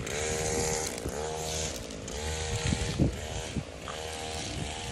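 Small engine revved up and eased off over and over, a rising then steady whine about once a second.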